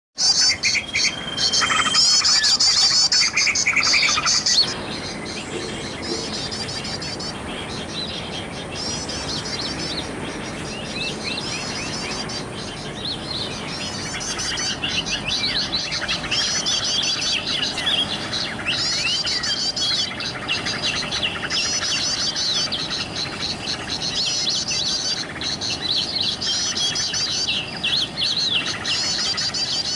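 Sooty-headed bulbul (kutilang) singing nonstop, fast high chattering trills repeated phrase after phrase, louder for the first few seconds.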